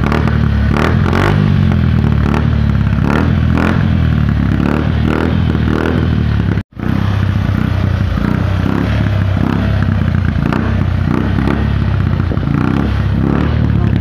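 Motorcycle engine running through an Apido chicken-pipe aftermarket exhaust whose pipe is welded straight on instead of using the supplied elbow, giving a steady exhaust note. The sound breaks off for a moment just past halfway and then carries on.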